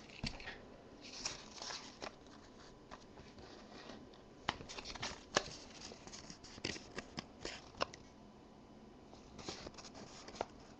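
A trading card and a printed paper slip being handled by hand: faint paper rustling, with a run of small sharp clicks and taps in the middle.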